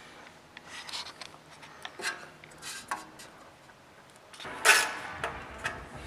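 Handling noise: scattered light rubs and clicks, with one louder, brief scrape about three-quarters through.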